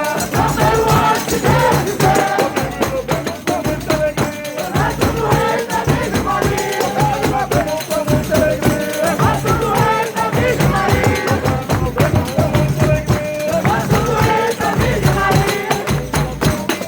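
Folia de Reis folk music: voices and instruments performing together, with tambourine jingles throughout.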